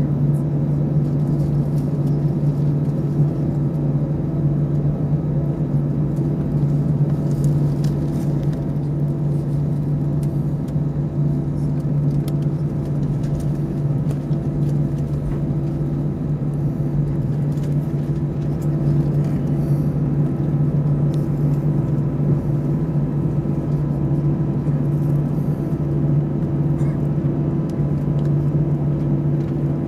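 Airbus A319 cabin noise during taxi: the jet engines running at idle, a steady low hum with a couple of constant droning tones and no spool-up.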